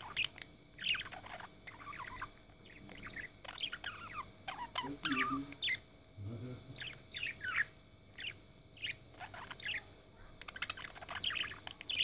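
Budgerigars chirping and chattering, a string of quick falling chirps in irregular runs.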